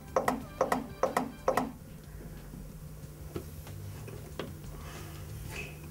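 Chest compressions on a CPR training manikin: a fast, even run of clicks, about three a second, that stops a little under two seconds in. Faint soft puffs follow as rescue breaths are blown through a pocket mask into the manikin.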